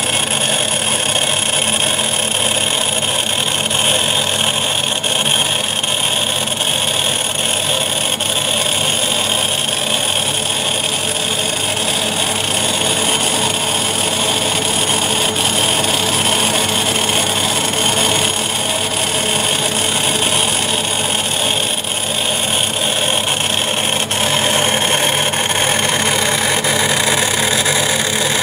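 Yaskawa SGMP-02A8YR11 AC servo motor running steadily on a test stand, driven from a robot controller: an even machine hum with a constant high whine that starts suddenly and does not change.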